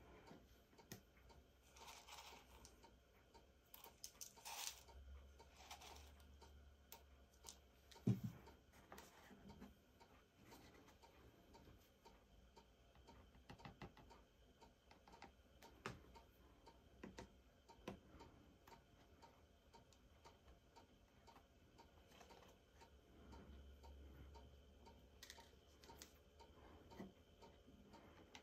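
Near silence with faint, irregular clicks and taps as small gems, a glue bottle and a paper lantern are handled on a tabletop, with one sharper knock about eight seconds in.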